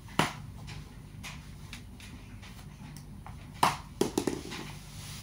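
Small knee-hockey ball hitting and bouncing on a hardwood floor: a sharp knock just after the start, then a knock followed by a quick cluster of smaller bounces near the end.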